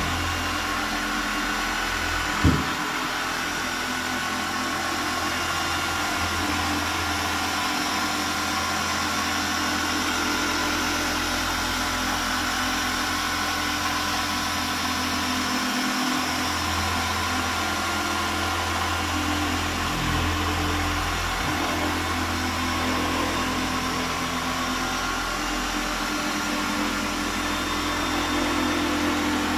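Handheld machine polisher with a green foam pad running steadily under load, cutting compound into soft car paint on a first correction pass. A single sharp knock sounds about two and a half seconds in.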